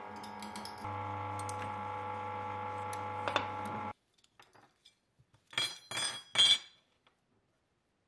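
Benchtop drill press motor running with a steady hum while the bit is brought down onto a small metal part clamped in its vise, louder from about a second in; it stops abruptly just before the middle. Then small metal screws and parts clink onto a workbench, three quick clinks.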